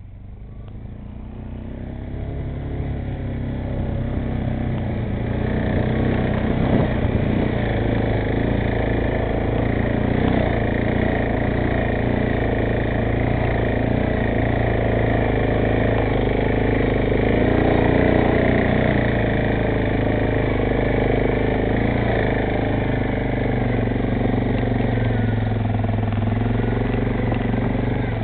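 ATV engines running steadily, the sound fading in over the first few seconds.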